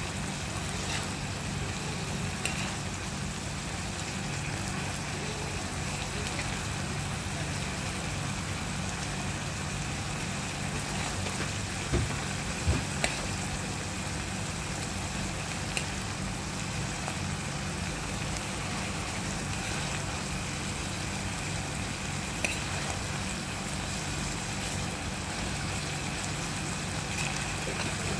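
Kangkong in adobo sauce sizzling steadily in a pan over a low steady hum, with a few sharp clinks of a metal fork against the pan, a cluster of them about twelve seconds in.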